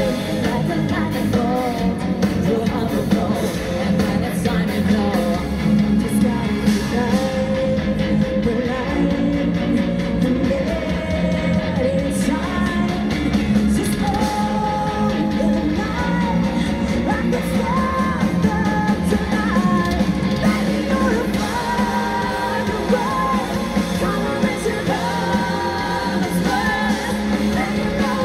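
Live rock band playing loud, with women's voices singing the melody over guitar, drums and keyboard, in a large hall.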